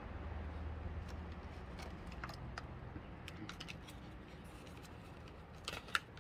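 Small motorized display turntable running with a low, steady hum that slowly fades, along with scattered light clicks. A short cluster of louder clicks comes near the end.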